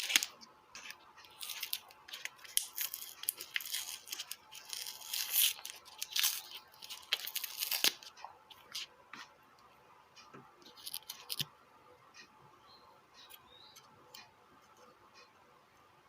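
Scraping, tearing and clicking noises of close hand work on a small loudspeaker driver whose lead has broken off. The noises come thick and irregular for about the first eight seconds, then thin out to a few faint ticks.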